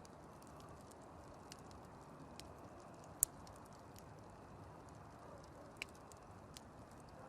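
Campfire of burning wood crackling: a low steady hiss with a few sharp pops, the loudest a little past three seconds in.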